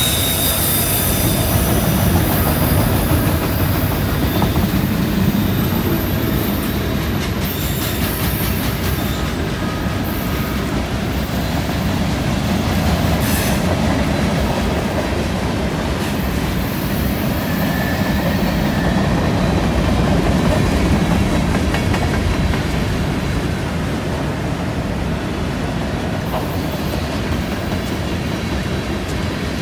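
Freight cars rolling past on a curve: a steady heavy rumble of wheels on rail, with high-pitched wheel squeal coming and going several times.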